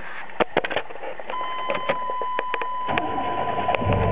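Keys clicking in the ignition, then a steady warning tone comes on about a second in. Near the end the 1994 Chevrolet C1500's 4.3-litre V6 cranks and starts, its first start on a newly fitted serpentine belt.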